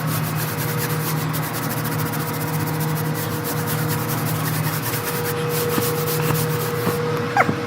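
Steady low hum of a running rooftop HVAC unit under a rough, scratchy rubbing noise.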